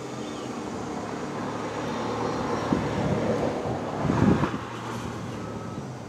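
A passing road vehicle: its noise swells to a peak about four seconds in, then fades away.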